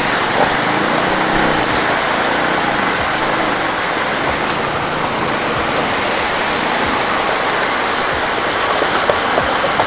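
Rushing stream water pouring across the road, a steady hiss, with a faint engine hum that fades out after about two seconds.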